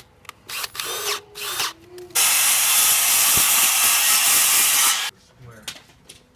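Power drill driving screws into wood: a few short bursts, then one steady run of about three seconds that stops abruptly.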